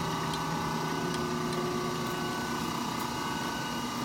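A 1958 Monarch heavy-duty engine lathe running under power, a steady machine hum with several steady tones and faint light ticks.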